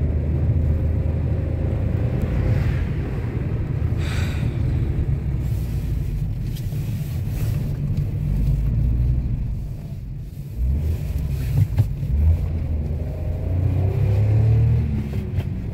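Car interior noise while driving: the engine and tyres give a steady low rumble, with a few short bumps about two-thirds of the way through.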